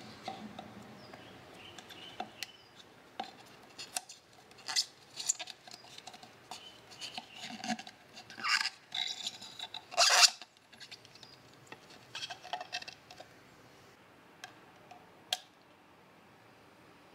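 Fingers rubbing and smoothing a paper sticker onto a thin clear plastic cup. Irregular rustling, scraping and crackling of the plastic, loudest about ten seconds in, with a single sharp click near the end.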